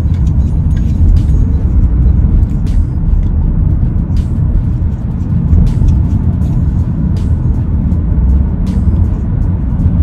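Steady low rumble of road and wind noise inside a moving car's cabin, with a few faint ticks.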